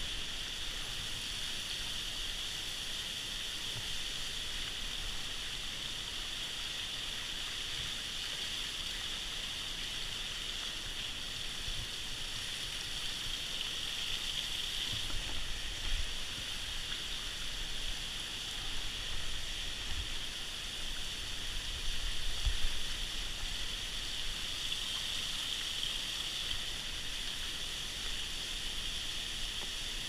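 Waterfall water rushing steadily over rock, with a few dull low thumps in the middle stretch.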